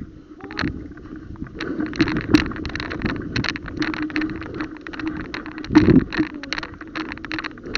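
Irregular rapid clicking and rustling over a steady low hum, with a heavier knock about six seconds in: the sound of a player moving and handling gear.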